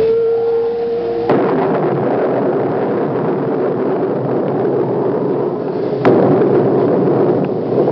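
Horror soundtrack sound design: a steady held tone is broken off about a second in by a sudden crash, followed by a dense, rough noise, with a second sharp crack near six seconds.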